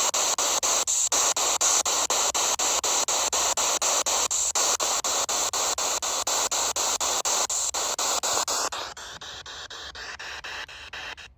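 PSB7 spirit box sweeping through radio frequencies: a loud hiss of static chopped about five times a second. It drops quieter about nine seconds in and cuts off just before the end.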